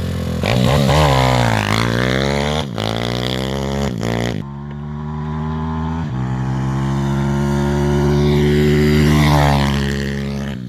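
Zongshen 160cc single-cylinder four-stroke pit bike engine being ridden hard: the pitch dips and climbs with the throttle in the first couple of seconds. After sudden breaks about three and four seconds in, the engine runs at a steadier pitch with a gentle rise and fall.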